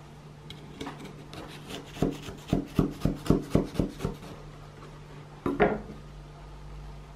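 Large kitchen knife sawing through a crisp slab of baked shortbread on a wooden cutting board: a run of about eight crunching strokes, roughly four a second. About five and a half seconds in, one knock of the knife set down on the wooden board.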